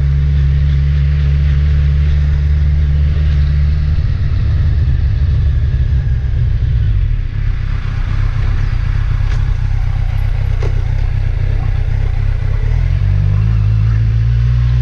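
A car being driven: a steady low engine drone with road noise, its pitch shifting a few times as the speed changes and stepping up near the end.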